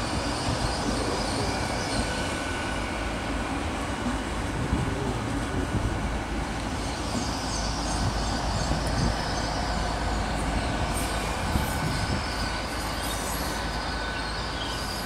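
Great Western Railway Intercity Express Train (Hitachi Class 800-series) moving through the station: a steady rumble of wheels and running gear on the rails. A faint steady whine sets in a couple of seconds in, and thin, high wheel squeals come and go about halfway through.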